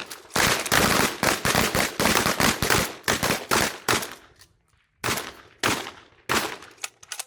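Several shotguns firing on a line, shots overlapping in a rapid volley for about three and a half seconds. After a short pause come a handful of more spaced-out shots.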